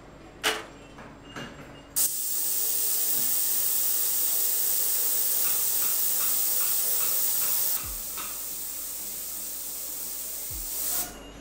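A stainless-steel jewellery cleaning tank starts with a gold bangle immersed, giving a sudden loud, steady hiss from the churning bath. About 8 s in there is a thud as the lid closes and the hiss becomes quieter and muffled, then it stops near the end.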